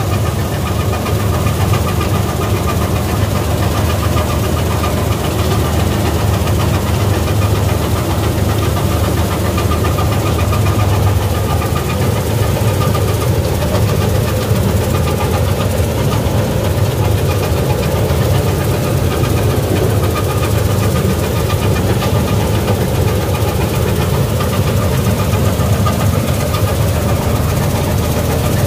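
Gill 961 combine harvester running steadily while cutting wheat: the engine's steady rumble together with the whir of the header and threshing machinery, with a steady high whine over it, heard from the driver's platform.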